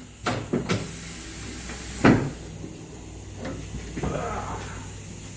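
A few knocks and clunks, the loudest about two seconds in, over a steady low hum.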